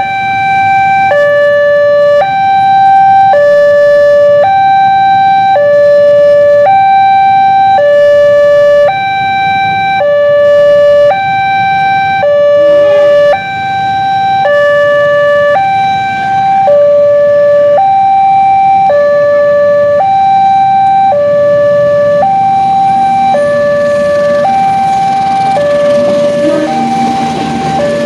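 Indonesian railway level-crossing warning alarm sounding its electronic two-tone signal, switching between a high and a low tone about once a second. Near the end the rumble of an approaching passenger train rises under it as the train reaches the crossing.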